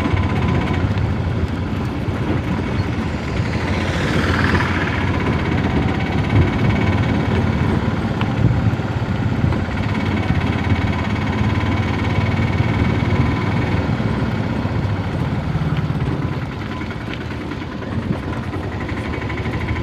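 A vehicle engine running steadily while travelling, with a louder sweep that rises and falls about four seconds in.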